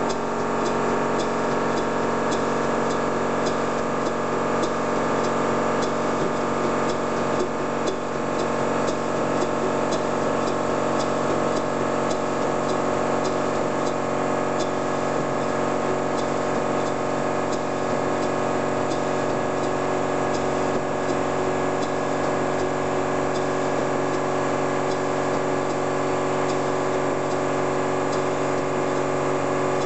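Tangye vertical steam engine running on compressed air after more than 35 years idle: a steady mechanical run with a regular light ticking, starting abruptly at the outset.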